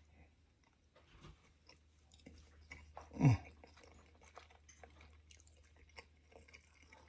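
A person chewing a mouthful of oxtail and butter beans with small wet mouth clicks, and about three seconds in a short low throaty sound that drops quickly in pitch.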